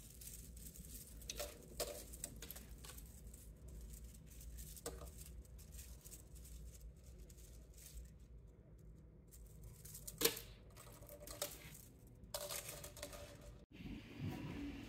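Small 3D-printed plastic chain links clicking and rattling against each other as they are handled in the hands: scattered light clicks, the loudest about ten seconds in, and a longer rattle near the end.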